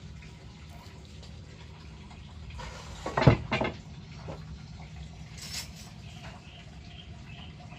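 A short clatter of a few hard knocks about three seconds in, over a steady low hum; from about six seconds, faint high chirps repeat about twice a second.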